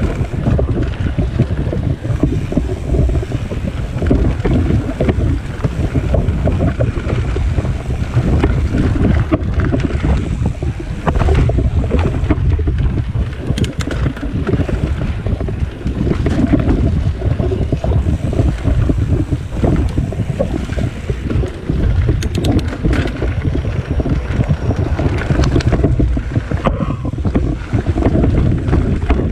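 Wind buffeting the microphone of a camera on a moving mountain bike, a steady low rumble, with the tyres rolling over a dirt trail. A few brief clicks come through partway in.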